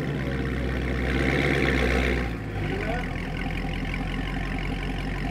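Dodge Charger Scat Pack's V8 through a Corsa Extreme cat-back exhaust idling just after start-up. It runs louder and higher for about two seconds, then settles at about two and a half seconds into a lower, steady idle.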